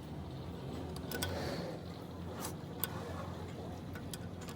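Scattered sharp metallic clicks and clinks a few times, over a steady low hum, with faint voices in the background.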